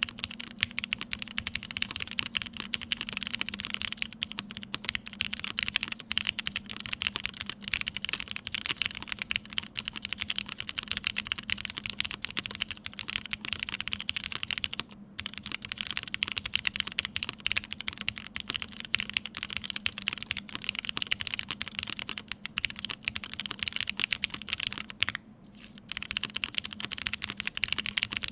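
Continuous fast typing on a TGR Jane V2 ME mechanical keyboard with lubed Vintage Black linear switches, a PC plate, O-ring mount and GMK keycaps: dense key clacks with brief pauses about fifteen and twenty-five seconds in. A faint steady hum runs underneath.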